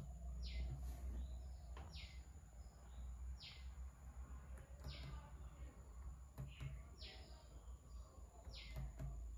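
A bird chirping faintly, six short high calls at an even pace of about one every second and a half. A few soft laptop key clicks and a low hum run under it.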